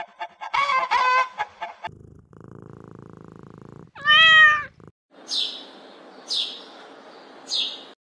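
A run of animal sounds: hens clucking, then a few seconds of cat purring and a single loud meow that rises and falls about four seconds in. Near the end, three short high descending chirps about a second apart sound over a steady hiss.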